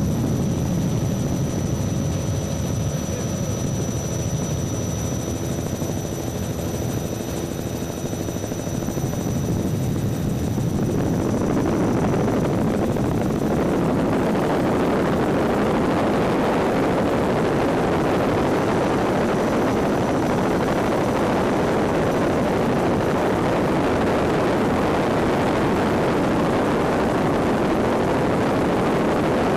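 Helicopter engine and rotor noise heard from inside the cabin: a steady low drone with a hum of steady tones. About eleven seconds in, a louder, even rushing noise takes over and holds.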